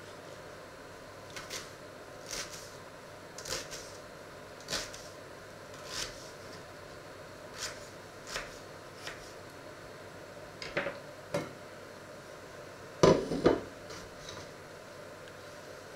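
Knife dicing an onion on a wooden cutting board: single sharp knocks of the blade on the board about once a second, with a louder clatter of several quick knocks about three-quarters of the way through.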